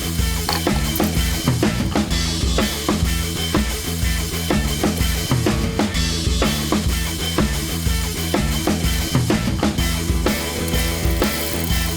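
Background music with a steady drum-kit beat and bass line.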